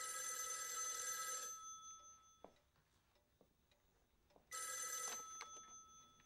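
Telephone ringing twice: a trilling ring lasting about a second and a half, then a shorter second ring about three seconds later.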